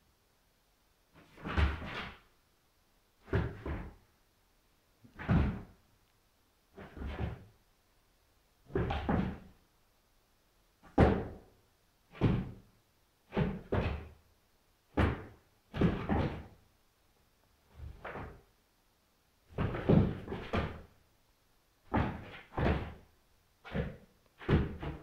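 Pit bull puppy barking at its reflection in a mirror: a long run of short, separate barks, about one a second, some coming in quick pairs.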